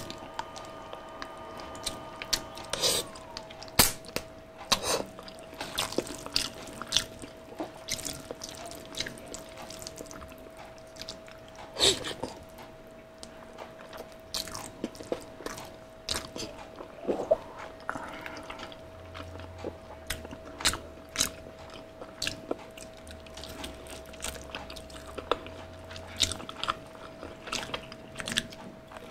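Close-miked eating: chewing and wet mouth smacks from mouthfuls of palabok noodles, with many scattered sharp clicks. A faint steady hum at one pitch runs underneath.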